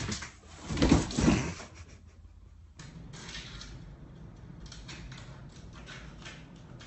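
A cardboard box knocking and rattling against a door under a cat's weight, with two heavy thuds about a second in. After that, a steady low room hum with a few faint clicks.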